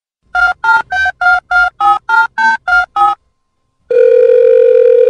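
Telephone keypad beeps, a dialling sound effect: ten short tones about three a second, each a different key, then near the end a long steady electronic beep.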